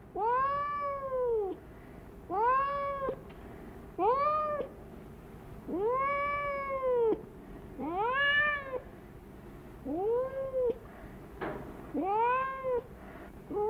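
A domestic cat meowing seven times at about two-second intervals. Each meow rises and then falls in pitch, the longest lasting over a second.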